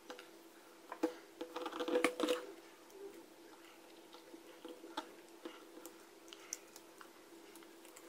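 Small clicks and rustling from a screwdriver and a cable being handled at a hair dryer's switch terminals, busiest about one to two and a half seconds in, over a faint steady hum.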